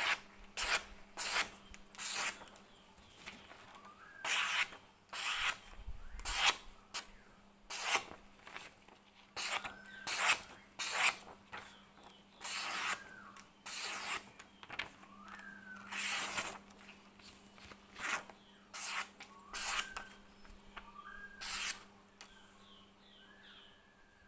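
A sharp golok blade slicing through a sheet of paper again and again in a sharpness test, a quick papery swish about once a second; the cuts stop near the end.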